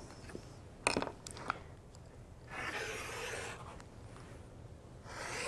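Rotary cutter blade rolling along an acrylic ruler and crunching through folded cotton fabric on a cutting mat, in two cutting strokes of about a second each. A couple of sharp clicks come before them, about a second in.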